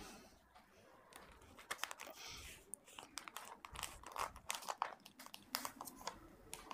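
Butter paper crinkling and rustling as a paratha roll is rolled up tightly inside it, in faint irregular crackles that start about two seconds in.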